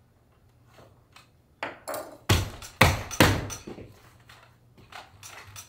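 Thick saddle-seat leather being pressed, stretched and rubbed by hand over the saddle: a quick run of five or so sharp scuffs and thumps starting about a second and a half in, then a few softer ones near the end.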